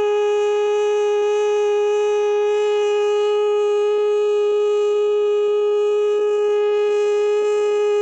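Air-raid siren sounding one steady held note.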